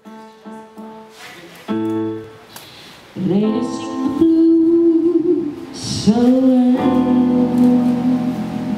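A woman sings into a microphone in long, held notes that slide up into pitch, coming in about three seconds in over sparse instrumental accompaniment that opens with a few short notes and a chord.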